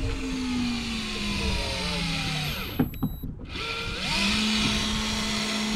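Electric fishing reel's motor winding in line, a whine that slides slowly down in pitch. About halfway through it stops for a second with a couple of clicks, then starts again and rises to a steady pitch.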